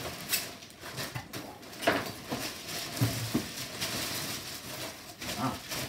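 Clear plastic packaging bag rustling and crinkling as a folded stroller is pulled out of it, with irregular light clicks and a few dull knocks from the stroller's frame and wheels being handled, the firmest about two and three seconds in.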